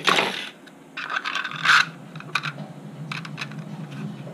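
A 3D-printed plastic pistol magazine being handled: two scraping rubs of plastic in the first two seconds, then a run of light, sharp plastic clicks in the second half.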